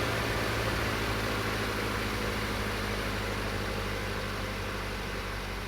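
Renault Master III van's diesel engine running at a steady pitch under a broad rush of road and wind noise, slowly getting quieter.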